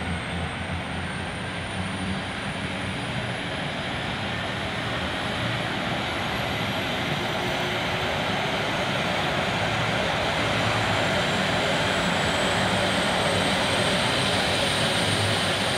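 Sikorsky S-76 helicopter's twin turbine engines starting up: a high whine that slowly rises in pitch over a steady rushing noise, growing louder as the rotor spins up.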